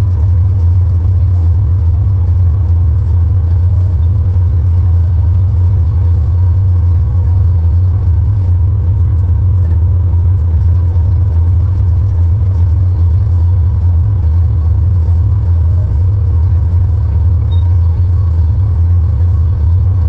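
Tractor engine running at a steady working speed, a loud, even low drone heard from inside the cab while it tows a small square baler, with a faint steady whine above it.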